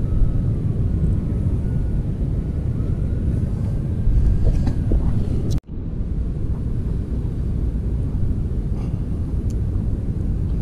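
Steady low rumble of outdoor noise beside a fast-flowing river below a dam, as picked up by a small outdoor camera. It cuts out for an instant about five and a half seconds in.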